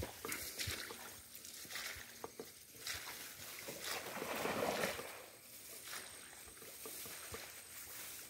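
Water sloshing and splashing at the edge of a muddy creek, swelling about four to five seconds in, with scattered light rustles and clicks.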